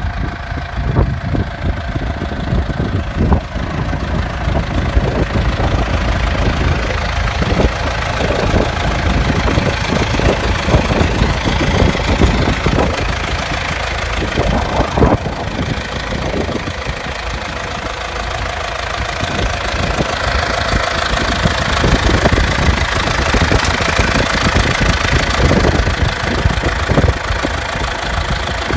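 John Deere 5720 tractor's four-cylinder diesel engine running steadily, with frequent irregular knocks and clatter over the low engine sound.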